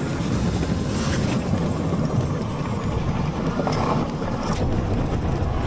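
Road noise inside a moving car: a steady low rumble of tyres rolling over a cobbled street.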